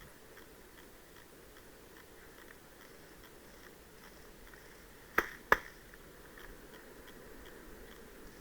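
Two sharp shots from an airsoft replica about a third of a second apart, a little past the middle, over a faint background of light ticking.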